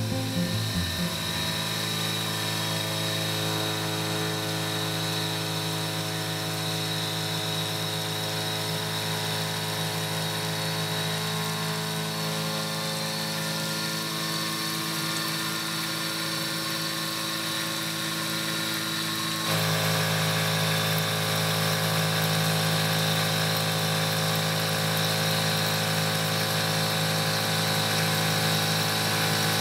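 Benchtop CNC mill with an LV-S20 spindle running steadily while machining a steel part, a constant whine with a steady hum beneath. About two-thirds of the way through the sound abruptly gets louder and changes pitch, then holds steady again.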